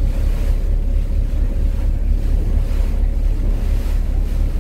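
Strong wind buffeting the microphone over a steady low rumble and a wash of water, as on the open deck of a moving harbour ferry, with a faint steady hum.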